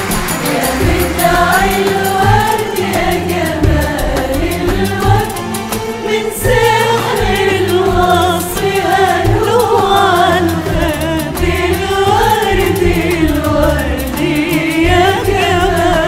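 A mixed choir singing a wavering Arabic melody in unison, accompanied by an Arabic orchestra of strings, qanun, oud and frame drums keeping a steady beat.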